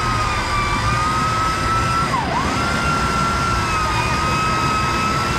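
Electric winch on the front bumper of a Jeep Cherokee XJ pulling it through deep mud: a steady high motor whine that drops sharply in pitch and recovers about two seconds in as the load comes on, over a low rumble.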